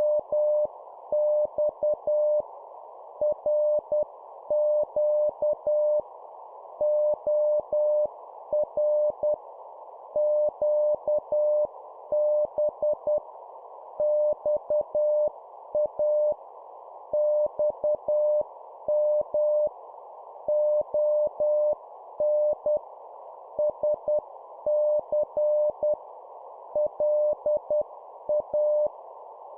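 Morse code (CW) tone keyed on and off at 10 words per minute, sending two-letter words as short groups of dots and dashes with pauses between them. It is one steady pitch over a constant band of hiss.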